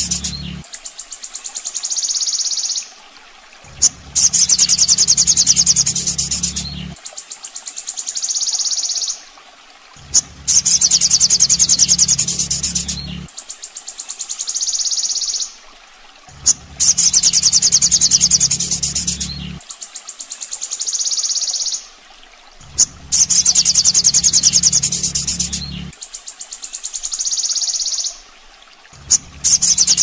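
Looped masteran tutor recording of a sogon (sunbird) song: a rapid, high-pitched pulsed trill repeated every few seconds. A low hum comes and goes every few seconds, with a short click at each loop joint.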